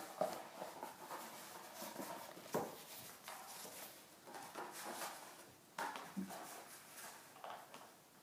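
Faint, irregular taps, scrapes and rustles of a cardboard paper towel tube being pushed along a rug and mouthed by a puppy.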